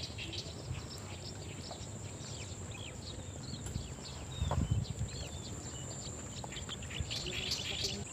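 Outdoor insect chorus: a steady high-pitched drone with many short chirps, and one dull thump about four and a half seconds in.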